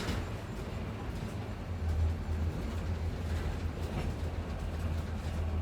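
Inside a moving bus: a steady low engine drone and road rumble, with a few faint brief rattles from the body.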